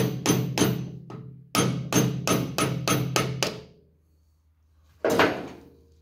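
Hammer striking a screwdriver to drive the old oil seal out of a John Deere 4440 PTO bearing quill housing clamped in a steel vise. Quick, even metallic taps come about three a second in two runs, and the housing rings with each one. After a short pause there is one harder blow about five seconds in, which frees the seal.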